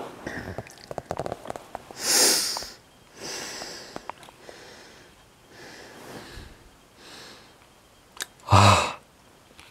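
A person's breathing close to the microphone: a sharp sniff about two seconds in, a longer, weaker breath after it, and a short voiced sound from the throat near the end, the loudest thing heard. Small clicks of the book and camera being handled come in the first two seconds.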